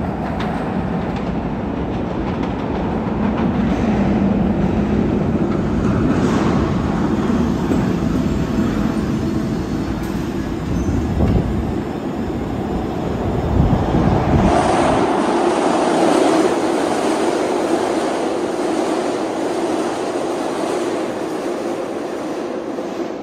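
SEPTA Kawasaki subway-surface trolleys and a Market-Frankford Line subway train running through the underground station: a trolley pulls in and stands at the platform while a subway train passes on the tracks beyond the fence, a loud, continuous rail rumble. The deep rumble drops away suddenly about fourteen seconds in, leaving a steadier, higher running noise.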